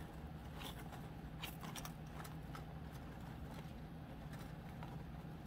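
Faint, scattered light ticks and clicks of thin 22-gauge craft wire being twisted by hand and knocking against a metal hoop.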